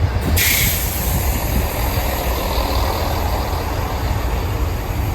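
Class 166 diesel multiple unit standing at the platform, its diesel engines idling with a steady low rumble. About a third of a second in, a high hiss starts suddenly and carries on.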